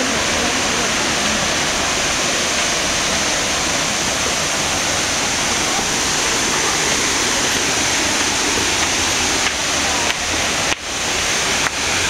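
Waterfall rushing steadily: an even, loud noise of falling water. It cuts out briefly a few times near the end.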